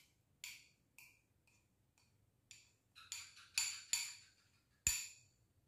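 Small glass bowl clinking and knocking as bait dough is squeezed and stirred in it by hand: about ten light, ringing knocks, coming quicker and louder after the halfway mark, with one sharp knock near the end.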